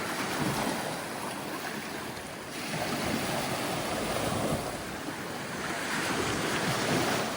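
Ocean waves breaking and washing ashore, with wind on the microphone; the surf swells about three seconds in and again near the end.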